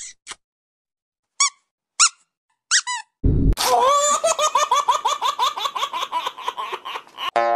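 Cartoon comedy sound effects: several short high-pitched squeaks in the first three seconds. Then, from about three seconds in, some four seconds of rapid squeaky chattering like a sped-up giggle.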